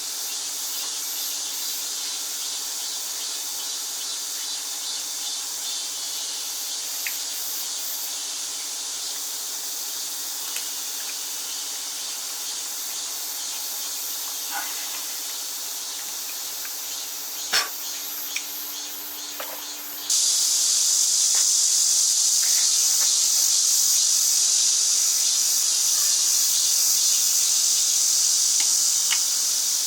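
Steady high-pitched insect drone that becomes suddenly louder about two-thirds of the way through, with a few faint clicks.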